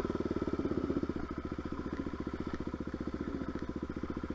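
Dirt bike engine idling steadily, an even beat of about fifteen pulses a second.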